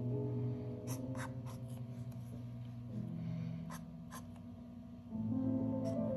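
Fountain pen nib, a c.1921 Moore, scratching across paper in a few short strokes over soft background music with sustained low notes.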